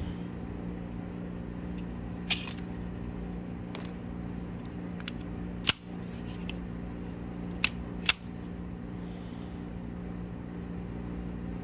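Scattered sharp metallic clicks of a Springfield Armory Prodigy 9mm pistol being handled and worked, about half a dozen in all, over a steady low hum.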